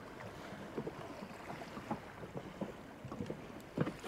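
Small waves lapping and slapping irregularly against the tube of a drifting inflatable boat, with wind on the microphone; one sharper slap just before the end.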